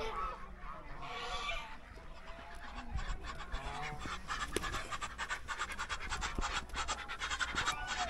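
Domestic geese honking, with a call about a second in, followed by a long run of quick, scratchy clicking.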